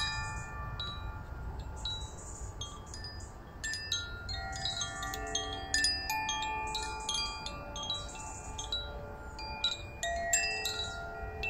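Hand-held cylindrical wind chime swung by hand, its clapper striking the inner tuned rods again and again. Several clear pitches ring and overlap, each strike leaving a long sustained tone.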